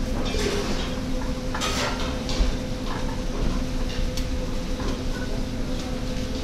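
Cooking utensils clinking and scraping against pots and pans in scattered short strokes, over a steady low hum.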